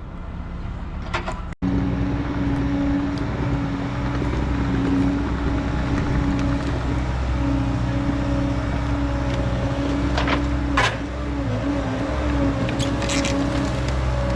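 Diesel engine of a Bobcat T66 compact track loader running steadily, starting after a cut about a second and a half in. Its pitch dips briefly near the end, with a few short clicks.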